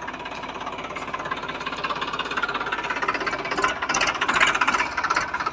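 Toy tractor running with a fast, steady mechanical rattle like a small engine, getting somewhat louder about two-thirds of the way in.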